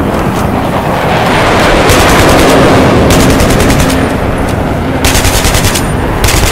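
Battle din of gunfire: rapid bursts of automatic weapon fire, three runs of evenly spaced shots, over a continuous rumble that swells loudest about two seconds in.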